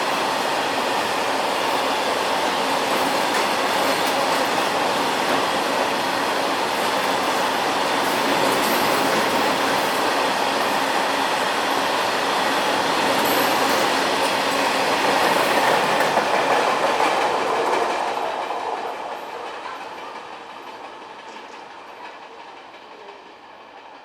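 Train hauled by a WAG-12 electric locomotive running at speed, steady wheel-and-rail noise with clattering over the rail joints. About three-quarters of the way in, the sound begins to fade away and keeps dropping to the end.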